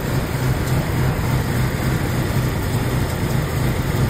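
BMW Z3 engine idling steadily with an even low hum, heard from close by in the open engine bay.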